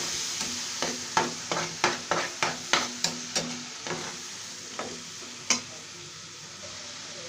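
Metal spatula scraping and knocking against a metal frying pan, several quick strokes a second, as onion, tomato and spice masala sizzles in oil. The stirring stops about three and a half seconds in, leaving the sizzle, with one more knock a little before the end.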